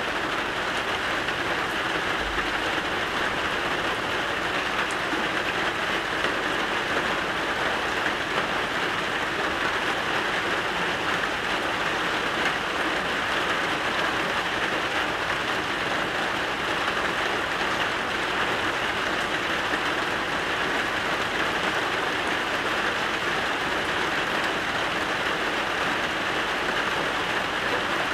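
Steady rain falling, an even hiss of drops on surfaces that keeps up without a break.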